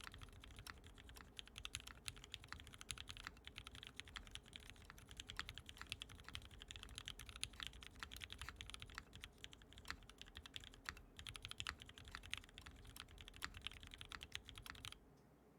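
Fast, continuous typing on a mechanical keyboard, many keystrokes a second, stopping abruptly shortly before the end.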